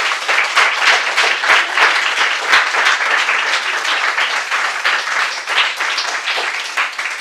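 Audience applauding: a dense run of many hands clapping that starts to thin out near the end.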